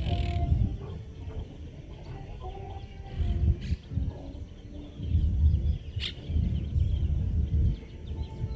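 Outdoor evening ambience: birds chirping and chickens clucking over the irregular low bass thumps of distant party music. A sharp click about six seconds in.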